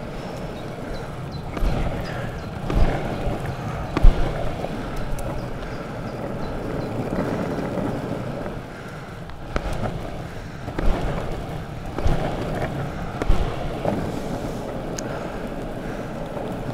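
Longboard wheels rolling over an asphalt path: a steady rumble broken by sharp knocks now and then.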